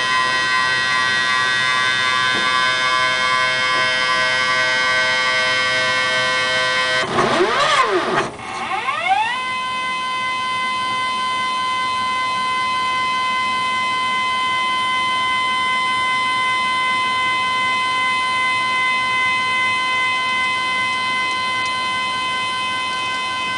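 MTA selective solder robot's axis drive motors whining in steady high tones. About seven seconds in the pitch swoops down and back up, then settles into one steady whine.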